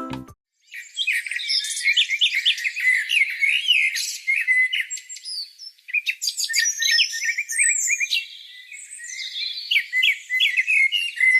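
Backing music cuts off right at the start. After a short pause, small songbirds chirp and twitter busily, with quick trills and rising and falling whistles.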